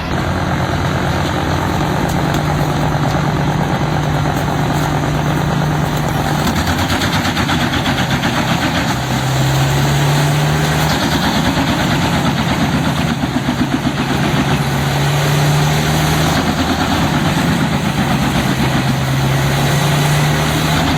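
Large diesel-powered wood chipper running, its engine note rising and dipping several times under the heavy grinding noise of the machine working.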